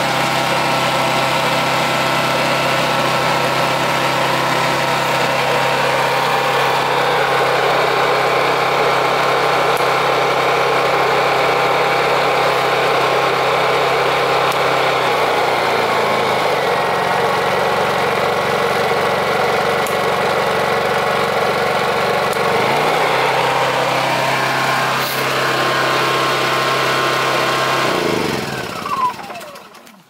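Honda EU2200i inverter generator's single-cylinder four-stroke engine running steadily. About halfway through its engine speed drops to a lower note, rises again some seconds later, and near the end the engine stops, its note falling away.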